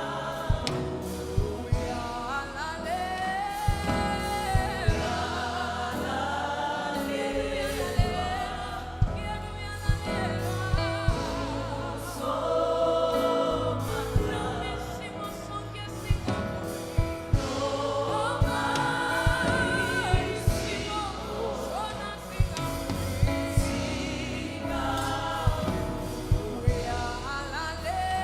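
Gospel music: a choir singing with held, wavering notes over a steady bass and sharp regular beats.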